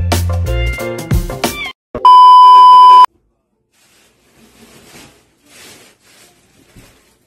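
Background music with a bass line and guitar stops about two seconds in. Then a loud, steady electronic beep holds one pitch for about a second and cuts off. After it come only faint, soft rustles.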